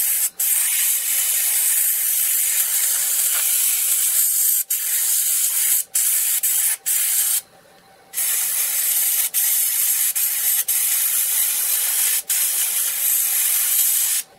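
Airbrush spraying paint with a steady hiss that stops briefly several times, with one longer pause of under a second about halfway through, and cuts off near the end.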